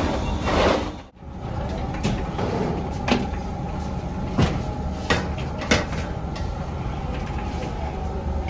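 A steel bakery rack loaded with trays of dough knocking and clanking as it is handled, with several sharp metallic knocks over a few seconds. A steady low machinery hum from the bakery oven runs underneath.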